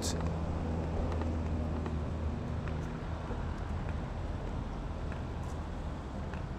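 A steady low mechanical hum, with a faint haze of street and wind noise.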